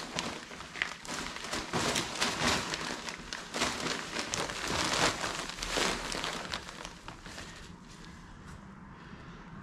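Bagged topsoil being tipped and worked into a planter, the plastic bag rustling and crinkling with many small clicks and rustles of falling soil, thinning out after about seven seconds.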